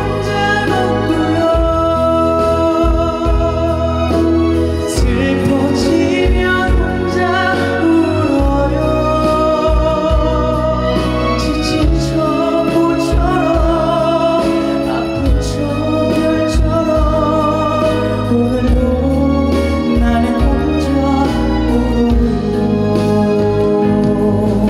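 Live performance of a pop ballad through a concert sound system: band backing with sustained keyboard chords and a low bass line under a wavering melody line.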